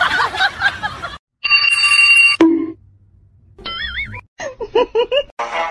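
Comedy sound effects added in editing: a held electronic beep like a phone tone, then a short low tone, then warbling cartoon-style tones in quick short notes.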